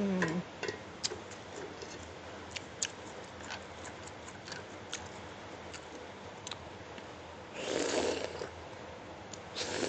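Close-miked mouth sounds of eating rice noodles: scattered small wet clicks of chewing and lip smacks, with a longer, louder rush of noise about eight seconds in and a shorter one near the end.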